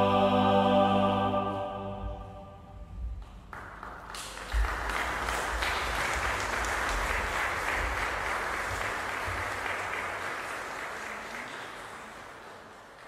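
A mixed choir holds its final chord, which stops about a second and a half in and rings away in the church's echo. Then an audience starts applauding about three and a half seconds in; the applause stays steady and fades out near the end.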